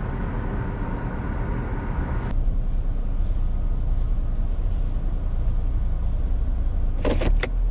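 Steady low rumble of a car on the move, engine and road noise, with a few sharp clicks near the end.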